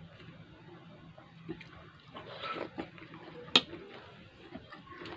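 Close-up eating sounds: wet chewing and slurping of food. A single sharp clink of a utensil on a plate comes about three and a half seconds in.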